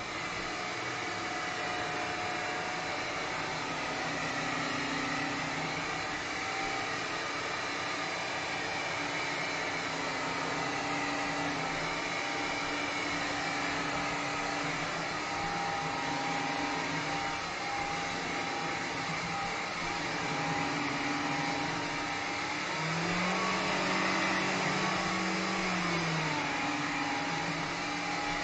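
Vax Glide cordless wet-and-dry hard-floor cleaner switched on and running steadily as it is pushed over spilled liquid, its motor whine briefly rising and falling in pitch near the end.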